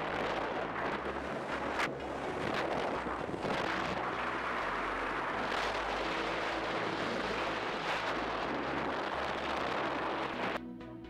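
Old carbureted Johnson outboard motor running with the boat under way at speed, almost buried under heavy wind buffeting on the microphone and rushing water. Electronic music cuts in about half a second before the end.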